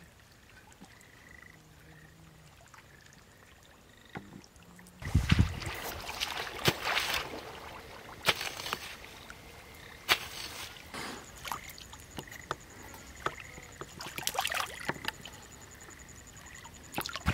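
Quiet outdoor background for about five seconds, then a heavy splash as someone steps into a shallow muddy ditch, followed by irregular splashing and sloshing of water and mud as they wade through it.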